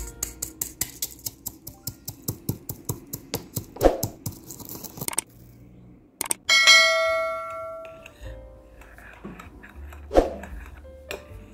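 Stone pestle pounding chili in a stone mortar: a quick run of sharp taps, about four a second, for about five seconds. About 6.5 s in, a bell-like chime rings and fades. Near the end comes faint scraping of a spoon stirring sauce in a ceramic bowl.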